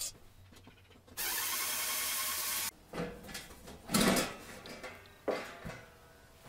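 Steel front cover of a breaker panel being worked loose and lifted off: a steady scrape for about a second and a half, then a few knocks and clunks of the sheet metal, the loudest about four seconds in.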